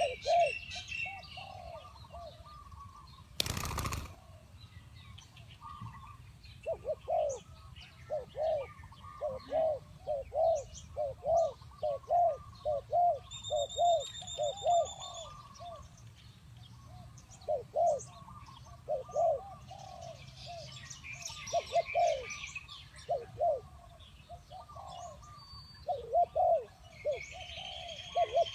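Spotted doves cooing: short, low, arched coos given in repeated phrases, with brief pauses, while small birds chirp higher in the background. A short burst of noise comes about three and a half seconds in.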